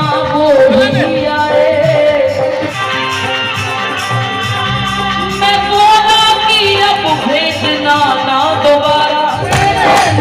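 Bhajan, a Hindu devotional song, sung with melodic instrumental accompaniment.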